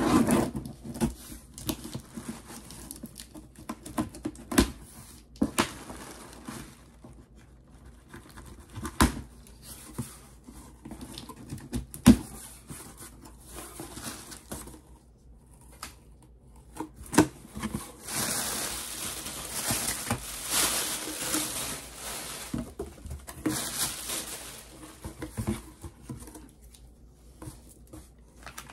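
Scissors slitting packing tape on a cardboard box, then cardboard flaps and packing material rustling and crinkling as the contents are handled, with scattered light knocks. The crinkling is loudest and longest about two-thirds of the way through.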